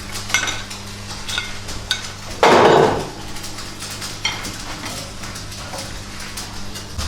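Metal parts and tools clinking and tapping, with one louder scraping-like burst lasting about half a second around two and a half seconds in, over a steady low machine hum.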